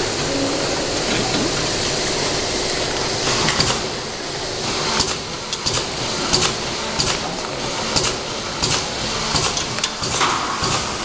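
Self-adhesive labeling machine running with a steady mechanical whirr. From about halfway, sharp clicks repeat roughly every two-thirds of a second.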